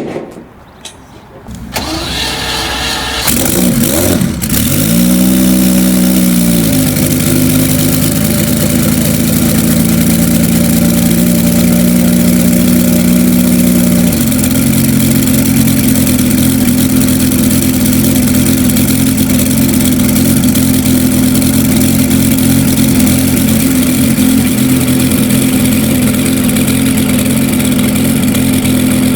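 Bugatti EB110 SC's quad-turbo V12 being started: the starter cranks for about a second, the engine catches, swells up in a quick rev and settles to a fast idle, then drops to a lower, steady idle about halfway through.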